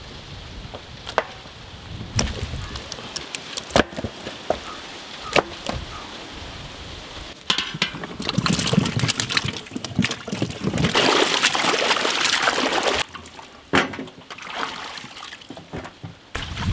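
Water being poured and splashing in a metal basin as vegetables are washed, loudest in a long stretch in the middle. A few sharp knocks come in the first half.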